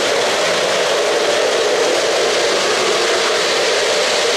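O-gauge model trains running on three-rail track: a steady, even rumble of wheels and motors.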